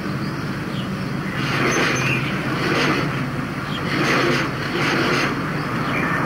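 Small vintage motorcycle engine running, a steady low hum with a swell of noise about once a second.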